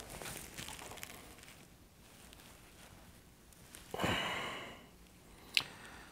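A person breathes out audibly through the nose once, about four seconds in. A single small, sharp click follows shortly after, amid faint handling sounds.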